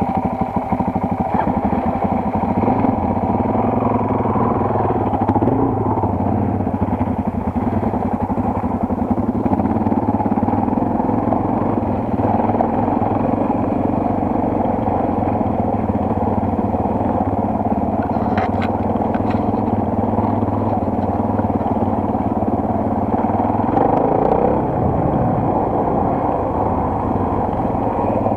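Single-cylinder four-stroke enduro motorcycle engine running steadily under way, heard from the bike itself. The engine note shifts briefly near the end.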